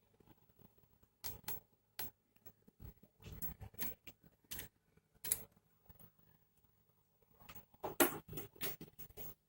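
Faint, irregular clicks and light knocks of hands and small tools handling the electronics, in scattered ones and twos with a denser, louder run about eight seconds in.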